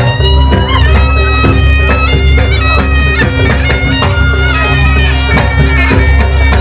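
Loud live jaranan music: a reedy, shawm-like double-reed trumpet (slompret) plays a sustained melody over regular kendang hand-drum strokes and a steady low bass.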